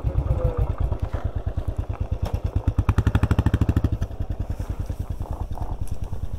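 Royal Enfield Bullet's single-cylinder engine idling with an even, regular beat through a non-standard exhaust, swelling briefly about three seconds in.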